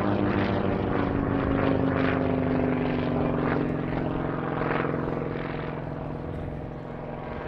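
Percival Provost's 550 hp Alvis Leonides nine-cylinder radial engine running under power in aerobatic flight overhead. Its pitch sinks a little over the first few seconds, and the sound eases off toward the end.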